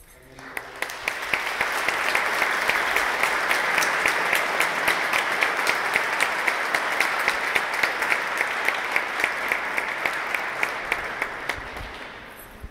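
Congregation applauding, with one pair of hands clapping close by at about three to four claps a second. The applause builds within the first second or two and dies away near the end.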